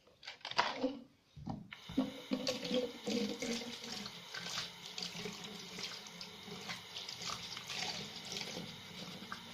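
Water running steadily from a tap into a sink, starting about two seconds in.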